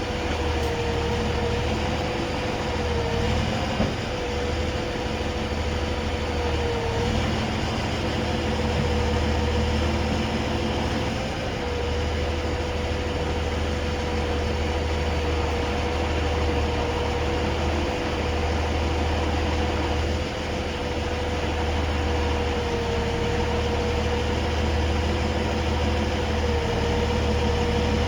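Heavy rotator wrecker's engine running steadily with a low rumble and a constant whine that dips slightly in pitch a few times.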